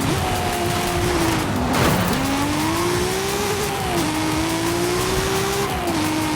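Car engine accelerating through the gears: its pitch climbs steadily and drops back at each upshift, about three times.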